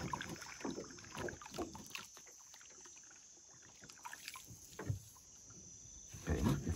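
Faint, irregular splashes and knocks of paddling a small boat on the river, with a quieter lull midway.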